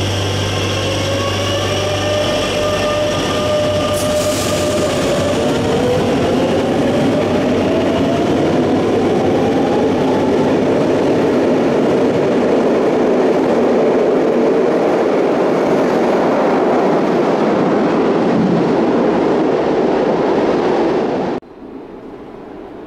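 Madrid Metro train accelerating away: its electric traction motors whine, rising in pitch, under a steady wheel-and-rail running noise that grows louder. The sound cuts off suddenly near the end.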